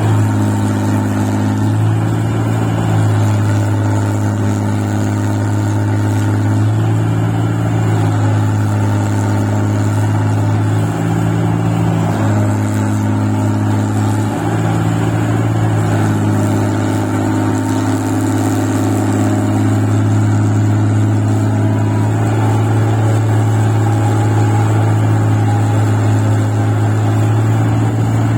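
Engine of a rice-paddy machine working in deep mud, running steadily with a strong low hum. Its note shifts a little every couple of seconds as the load changes.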